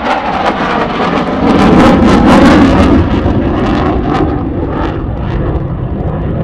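Aircraft flying past at an air show, a loud rushing engine noise that peaks about two seconds in and then eases to a lower rumble as it moves away.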